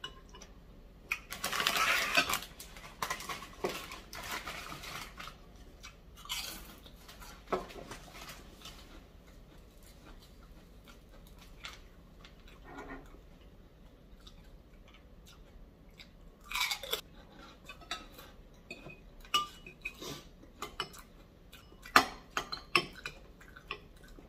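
Spoon clinking against a bowl and chewing while eating bakso meatball soup, with scattered sharp clinks and a longer noisy stretch about a second or two in.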